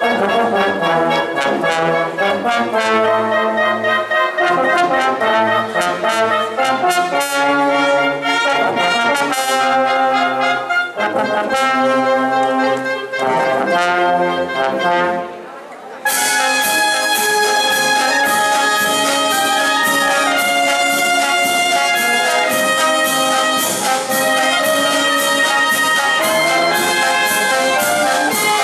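Town wind band playing outdoors: clarinets, saxophones and brass over snare and bass drum. About halfway through the music drops away briefly, then comes back in suddenly at full level.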